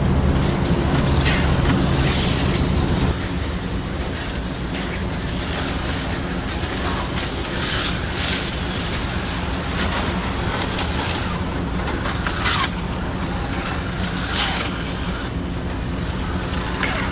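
HO-scale slot cars (a 1977 Plymouth Fury and a BMW M1) racing laps, whirring past again and again in short bursts every second or two over a steady low electrical hum.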